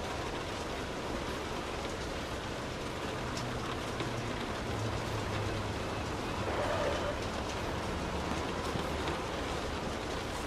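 Steady rain pattering on a car's roof and windows, heard from inside the cabin, with many small drop ticks. A low rumble comes in partway through and fades.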